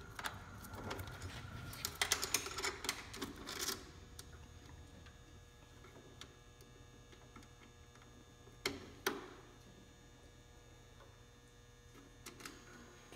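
Small steel roller chain clicking and rattling as it is fitted by hand over the sprockets of an egg candler's timing drive. The clicking is busiest in the first few seconds, then two sharp metallic clicks come about nine seconds in.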